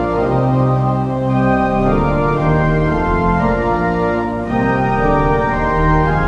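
Organ music: slow, sustained chords held and changing about once a second.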